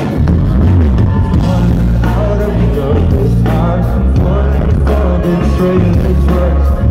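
Live amplified music: a male voice singing over acoustic guitar through a concert PA, with heavy bass that is the loudest part of the sound.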